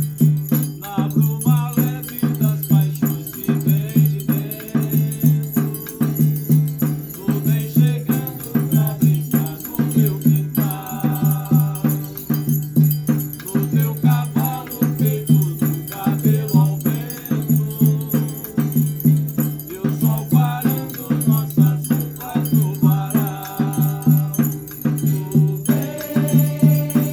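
Instrumental music on glass instruments: a low note pulses steadily over and over while a melody moves above it, with a shimmering, chime-like ring.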